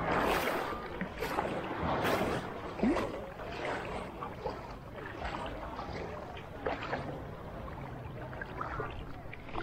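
Sea water sloshing and splashing close to the microphone: a steady wash of water with irregular splashes, the loudest about three seconds in.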